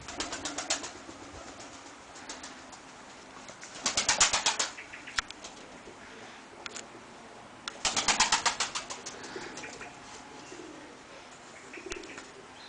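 Takla (Turkish tumbler) pigeons flapping their wings in three short bursts of rapid wing beats, about four seconds apart, as birds take off or flutter.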